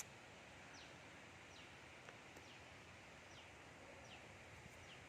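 Near silence: faint outdoor ambience, with a thin, high chirp that falls in pitch repeating about once a second.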